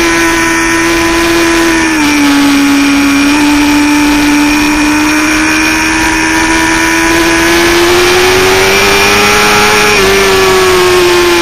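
Sport bike engine running hard under an onboard camera, a loud steady note that drops in pitch about two seconds in, climbs slowly, and dips again near ten seconds, over a steady rush of noise.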